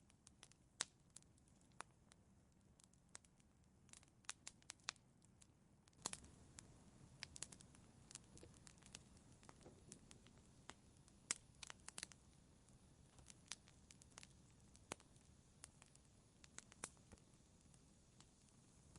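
Wood fire in a fireplace crackling: irregular sharp snaps and pops, a few each second, over a faint low hiss.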